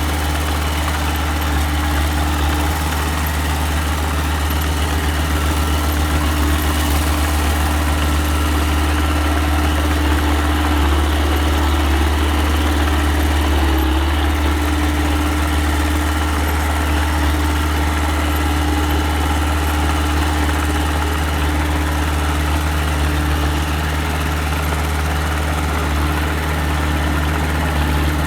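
Diesel engine of a small earthmoving machine running steadily with a deep, even hum, without revving.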